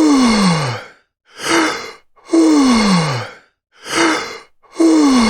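A person yawning deeply over and over. Each yawn is a short breath in, then a longer voiced out-breath that slides down in pitch. The long falling out-breath comes three times, about every two and a half seconds.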